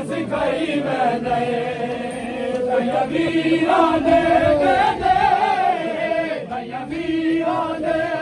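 Many male voices chanting a noha (Shia mourning lament) together, holding long, wavering notes.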